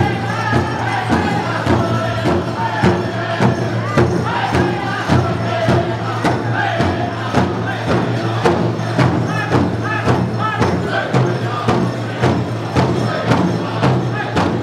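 Powwow drum group singing together over a big powwow drum struck in a steady beat of about two strikes a second: a women's fancy shawl dance song.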